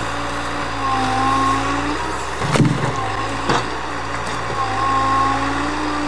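Log truck's diesel engine running steadily to drive the loading crane's hydraulics, with a whining tone that slowly rises and falls in pitch as the crane works. Two sharp knocks come about midway.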